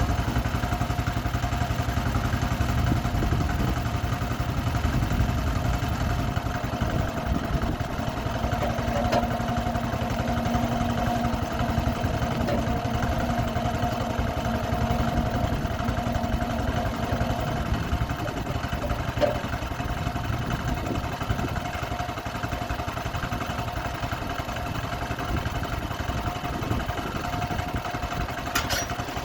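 Sawmill's engine running steadily with a held tone over it, a low hum joining in for several seconds through the middle.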